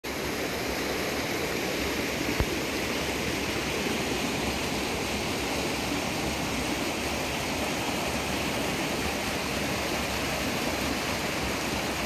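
Mountain stream water rushing steadily over a small waterfall into a plunge pool, with a single brief knock about two and a half seconds in.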